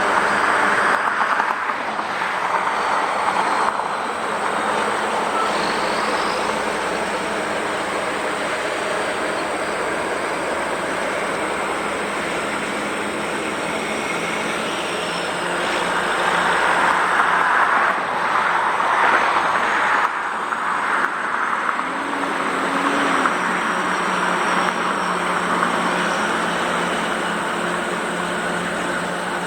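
Steady motor-vehicle road noise, swelling louder briefly at the start and again for a few seconds past the middle.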